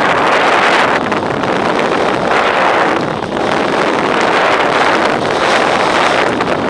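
Steady loud rush of wind on the microphone mixed with mountain bike tyres rolling fast over a gravel trail.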